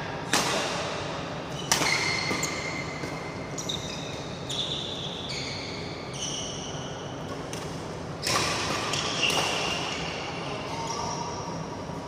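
Badminton racquets striking a shuttlecock, sharp hits echoing in a large hall: two near the start and two more about eight and nine seconds in. Between the hits, court shoes give short high squeaks on the floor.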